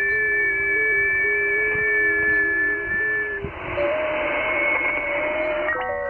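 FT8 digital-mode signals on the 40 m band, heard from an Icom IC-7600 shortwave transceiver: several steady tones stepping up and down in pitch over a hiss of band noise. About halfway through the tones end, leaving hiss and one fainter tone. Near the end many new stepped tones start at once, the start of the next FT8 transmit period.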